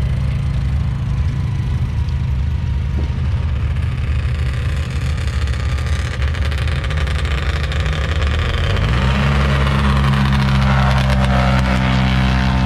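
Side-by-side engines idling steadily at the drag strip. About nine seconds in, the engine pitch rises quickly and then holds higher as the revs come up.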